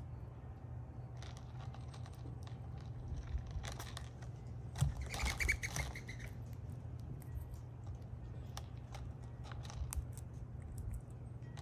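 Gray squirrel eating seeds and peanuts on a feeder tray: scattered small clicks and cracks, over a steady low hum. A short bird call comes about five seconds in.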